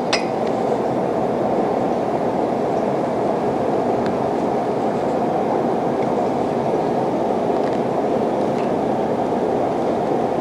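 Steady rushing noise of commercial kitchen ventilation fans, with a few faint taps.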